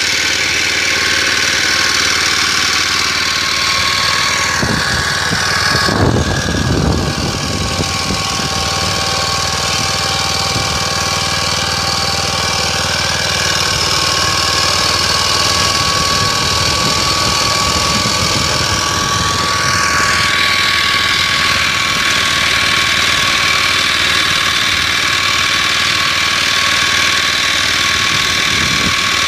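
Motor Sich walk-behind tractor engine running steadily under load while pulling a disc potato hiller in second gear. There is a brief louder surge about six seconds in, and the engine's pitch sags slightly afterwards and climbs back about twenty seconds in.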